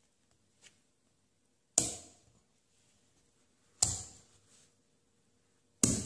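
Slabs of small cube neodymium magnets snapping onto a magnet-cube box: three loud, sharp metallic clacks about two seconds apart, each fading briefly.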